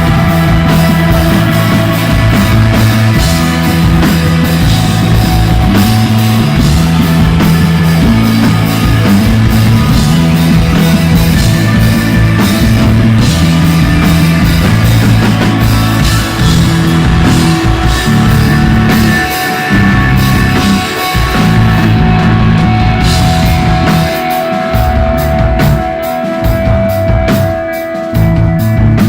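Instrumental psychedelic desert rock played live and loud by bass guitar, electric guitar and drum kit in a long jam. A high note is held for several seconds near the end over steady drum hits.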